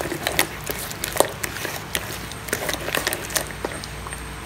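A hand squishing and kneading a thick, wet spice marinade in a plastic bowl: irregular soft squelches and small clicks.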